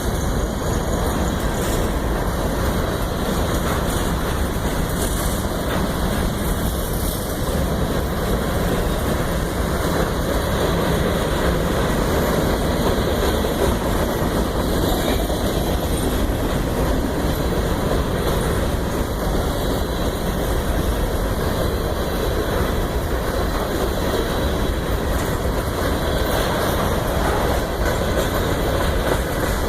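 Union Pacific train rolling past, a steady rumble of wheels on the rails with no horn sounding.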